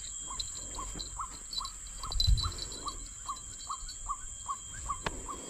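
An animal call, a short falling note repeated about two and a half times a second, over a steady high-pitched insect drone from the forest; a low thump about two seconds in.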